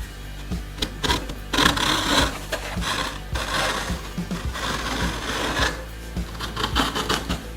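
Several stretches of rasping, rubbing noise, the longest about two seconds, over background music with a steady beat.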